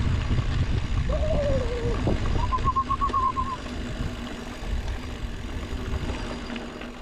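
Ride noise of a gravel bike on the helmet or bike camera: wind buffeting the microphone and tyres rumbling over the dirt, louder in the first half. Two brief whistling tones cut through it, a falling one about a second in and a wavering higher one around three seconds in.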